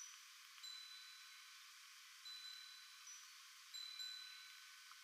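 Faint metallic chime ringing: several struck notes, each a clear tone with a few higher overtones that hangs for up to a second or so before fading, over a steady hiss.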